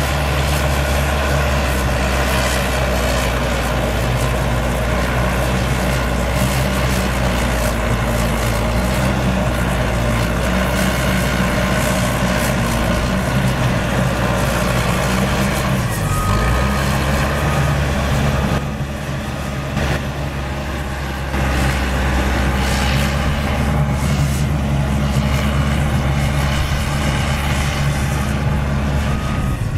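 Cat D5K2 XL crawler dozer's diesel engine running steadily under load as the dozer pushes dirt. The pitch dips briefly about halfway through, and the sound goes a little quieter for a couple of seconds soon after.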